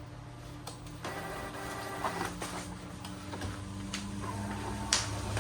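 Epson L6290 inkjet printer printing a test page: motors whirring with a pitched whine about a second in, and several sharp mechanical clicks, the loudest near the end.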